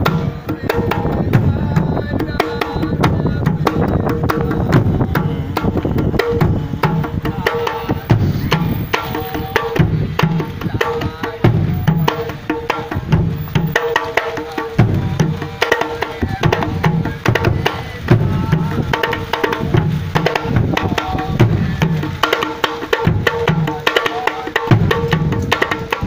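Rastafari Nyabinghi drumming: a deep bass drum beating a slow steady pulse, with the sharp, quicker strokes of hand drums played over it.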